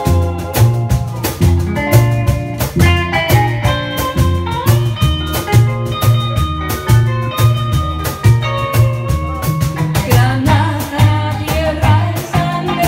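Live band playing with electric guitar and upright double bass under a steady, regular beat, with a woman singing.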